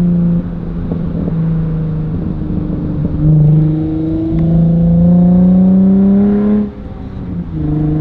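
Nissan 350Z's VQ35 V6 heard from inside the cabin through a Tomei titanium cat-back exhaust, pulling up to speed. Its note climbs in pitch and drops back at each gear change, with a brief lull near the end as the shift is made.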